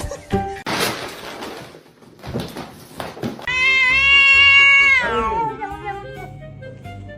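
A cat's long, loud meow, held steady for about a second and a half and then sliding down in pitch as it fades, over background music. A short rush of noise comes about a second in.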